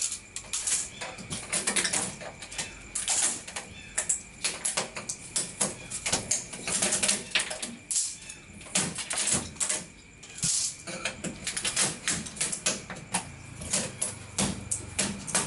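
Irregular clicks, taps and light rattles from handling the LED backlight strips inside an opened LCD TV, as the old strips are taken out and the new ones brought in.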